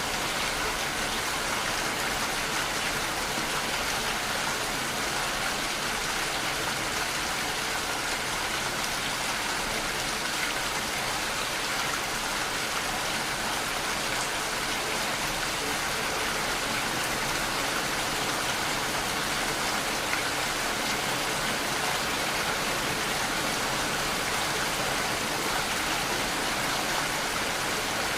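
Steady, unchanging rain sound with no breaks or separate events, used as the masking track of a subliminal recording.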